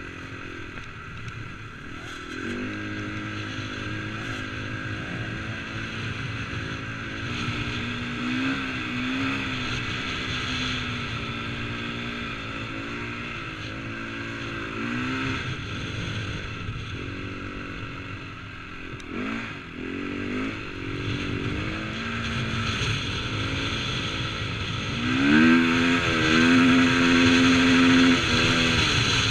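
KTM 450 motocross bike's single-cylinder four-stroke engine picked up by a helmet-mounted camera, its pitch rising and falling again and again as the throttle is worked on loose sand. It revs hardest and loudest near the end.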